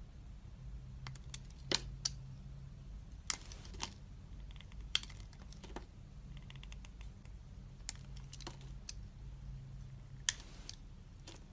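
Dried soap being cut into cubes: about a dozen crisp, irregular clicks and short crackly crunches, the loudest about ten seconds in.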